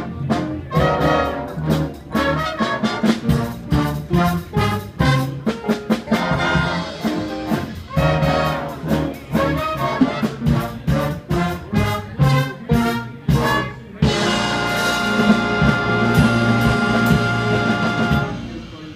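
Big band with saxophones playing an up-tempo number in short rhythmic hits, then holding a long final chord from about fourteen seconds in until it cuts off near the end.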